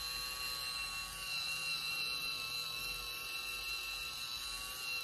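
Small motor of a handheld electric facial cleansing brush running steadily as the brush head works over the skin, a steady high whine.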